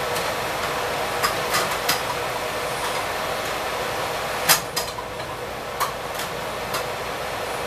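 Hush puppies deep-frying in a skillet of hot oil as they brown: a steady sizzle with sharp pops and crackles scattered through it. The loudest pop comes about four and a half seconds in.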